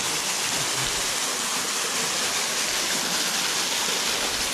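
Steady rush of water pouring over a small waterfall into a river.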